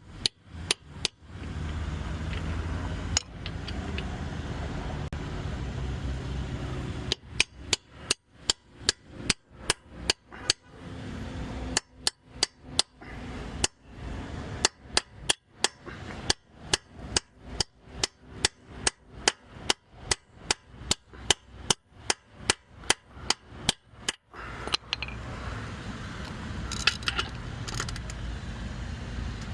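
Repeated hammer blows on metal, about two a second with short pauses. They drive a tool onto a wheel's capped lug nuts, whose covers are stripping so that a socket slips off.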